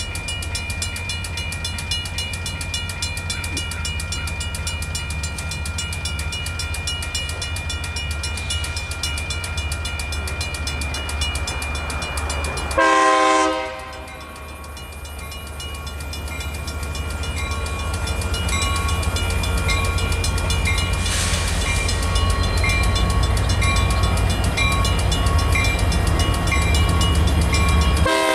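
Railroad crossing bells ringing steadily over the low rumble of a passing freight train. A short, loud horn-like blast comes about halfway through and again at the very end.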